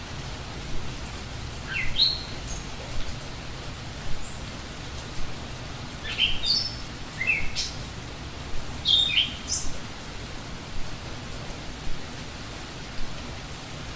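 Steady rain hiss with a songbird chirping over it. The bird gives three short bouts of quick calls that rise in pitch, about two, six and nine seconds in.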